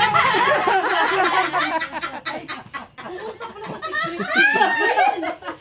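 Several women laughing loudly together, their voices overlapping. The laughter dies down about two seconds in and breaks out again near the end.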